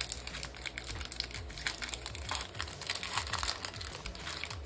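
Foil wrapper of a Pokémon trading-card booster pack crinkling as it is torn open, a dense run of irregular crackles.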